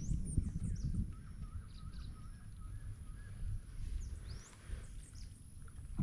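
Wild birds calling: a few short rising whistles and a run of quick, repeated notes in the middle, over a steady low rumbling noise.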